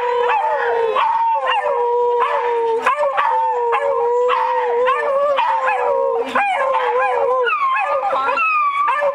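A pack of beagles howling and baying together: one long, steady howl holds beneath shorter rising and falling howls and sharp barks, and the long howl breaks off about three-quarters of the way through.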